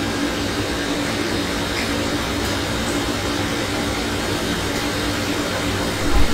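Steady hissing background noise with a faint steady hum, and a loud low thump at the very end.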